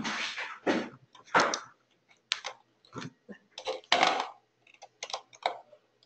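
Irregular clicking and tapping of a computer keyboard and mouse: about a dozen short clicks at uneven intervals.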